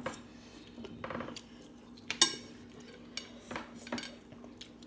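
Chopsticks and a fork clicking and scraping on dinner plates while eating, with one sharp clink a little over two seconds in. A faint steady hum runs underneath.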